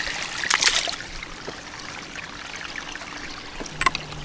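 River water trickling and splashing at the bank, with short sharp splashy sounds about half a second in and again near the end.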